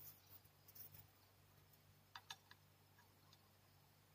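Near silence with a few faint, light clicks, a short run of them about two seconds in: small screws being fitted by hand into the metal plate under a smart door lock's lever handle.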